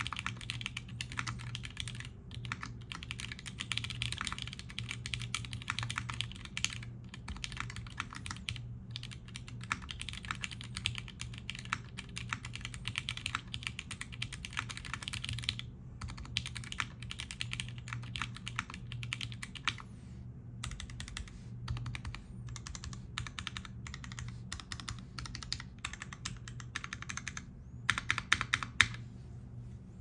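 Typing test on a Singa RAT Unikorn 60% mechanical keyboard with vintage Cherry MX Black linear switches on an aluminium half plate and GMK keycaps: fast, continuous keystrokes with a few brief pauses, a louder flurry of strokes near the end, then the typing stops.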